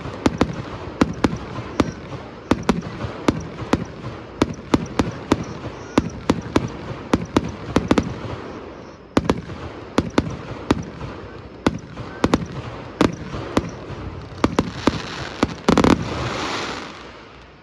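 Aerial fireworks display: a rapid barrage of shell bursts, several sharp bangs a second over a continuous crackling haze. About sixteen seconds in comes the heaviest burst, followed by a crackling hiss that fades away.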